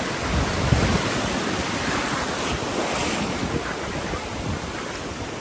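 Sea surf washing onto the beach, a steady rushing noise, with wind buffeting the microphone in low gusts.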